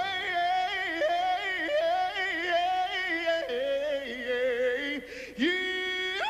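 A solo singing voice with strong vibrato, running through a wavering, ornamented melodic line with little accompaniment, then sliding up into a held note near the end.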